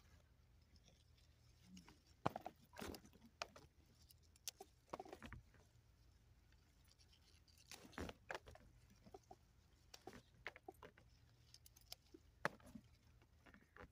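Faint rustling of pea plants and scattered short snaps and clicks as pea pods are picked off the vines by hand.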